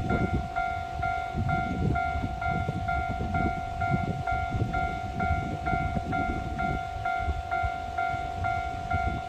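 Japanese railway level crossing alarm ringing, an electronic bell repeating about two dings a second, over a low rumbling noise.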